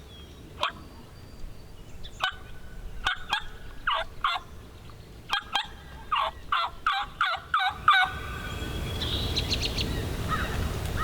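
Several wild turkey toms gobbling over and over, their rattling calls overlapping in quick succession for about eight seconds, with a few more gobbles after that.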